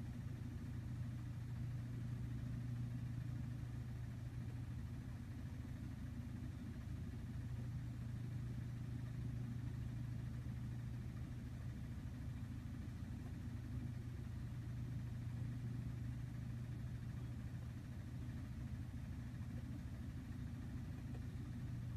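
Steady low hum from a running machine, unchanging throughout.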